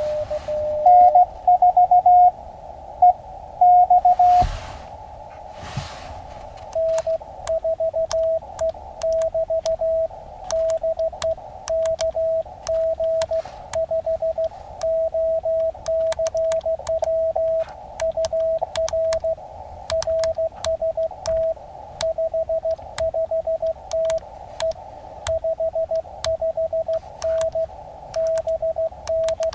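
Morse code (CW) tones from an Elecraft KX2 ham radio transceiver, heard through its narrow filter with a band of hiss behind them. A higher-pitched signal is keyed briefly, and from about seven seconds in a lower tone runs in a steady stream of dits and dahs, with thin sharp clicks along the keying.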